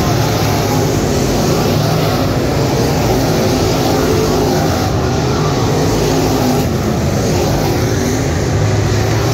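A field of 604 crate late model dirt-track race cars at racing speed, their small-block V8 engines running loud and steady together as the pack goes around the oval.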